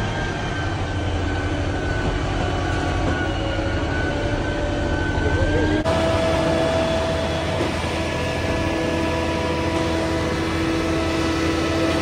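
Concrete mixer truck's diesel engine running steadily, with several steady whining tones over it. The sound changes abruptly about six seconds in.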